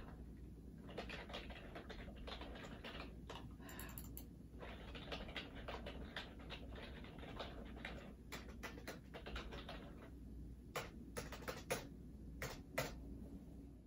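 Typing on a ThinkPad laptop keyboard: an uneven patter of light key taps, with a few louder clicks near the end.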